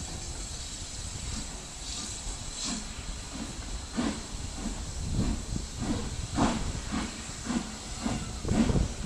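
Steam train running past with its coaches, heard as a steam hiss with a regular beat about twice a second that grows louder from about four seconds in.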